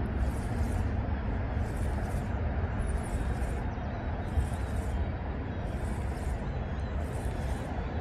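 Wind rumbling on the microphone, with a faint high hiss that swells about once a second and a brief high chirp about three seconds in.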